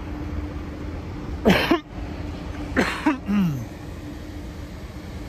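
A person's short cough-like burst about one and a half seconds in, then a second short vocal sound about three seconds in that ends in a falling tone. A steady low hum runs under both.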